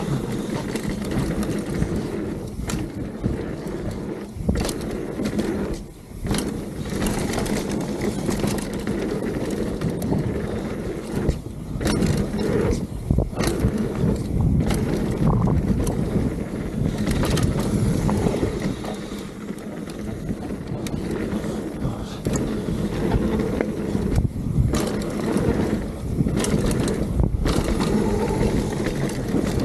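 Mountain bike descending a dirt trail at speed: a continuous low rumble of tyres rolling over packed dirt and wind on the microphone, broken by irregular rattles and knocks from the bike over bumps.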